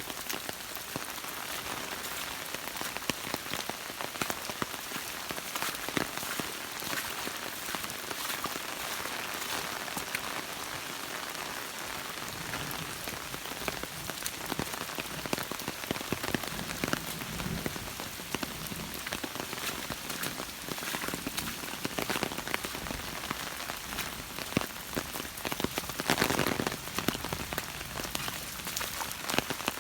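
Steady rain falling during a thunderstorm, an even hiss with many individual drops ticking close by.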